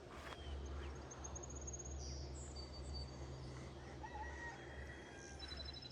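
Faint outdoor ambience of distant chickens from a neighbouring yard, with scattered thin, high chirps and a short trill from small birds over a low, steady hum.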